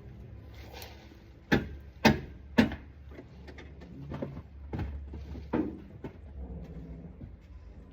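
A series of sharp knocks over a low steady hum: three loud ones in quick succession about a second and a half in, then several fainter ones.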